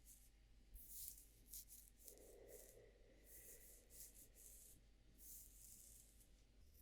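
Faint, soft rubbing strokes close to the microphone, ASMR hair playing, repeating every second or less, with a brief muffled lower sound about two seconds in.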